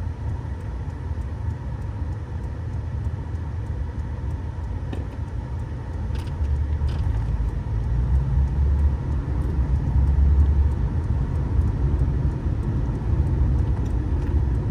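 Subaru Baja driving, heard from inside the cab: a steady low rumble of engine and road noise that grows louder about halfway through.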